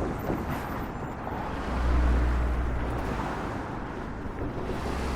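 City street traffic: a steady wash of passing cars with a deep engine rumble that swells about two seconds in, as a heavier vehicle passes close by, then eases off.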